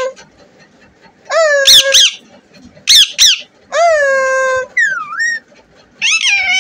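Pet parrot giving a series of loud squawking calls: a long call about a second in, two short sharp calls around three seconds, another long call, a brief wavering call, and a last call near the end.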